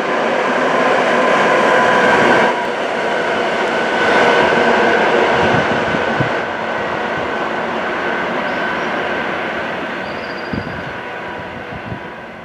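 A short train of diesel locomotives with a snowplough unit passes through, engines running with a steady whine over the rolling noise. It is loudest early on and fades as it draws away, with a few faint knocks from the wheels near the end.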